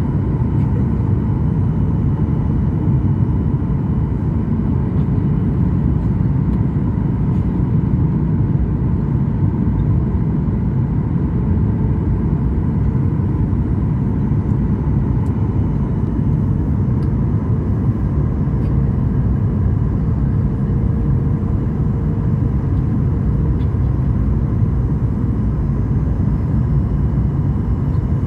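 Steady cabin drone of a Boeing 737 in flight, heard from inside the cabin: a heavy, low rush of engine and airflow noise with faint steady engine tones over it.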